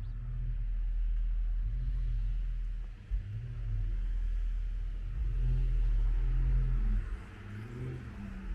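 Street traffic: a low rumble of vehicle engines with their pitch wavering, loudest about two-thirds of the way through and easing off near the end.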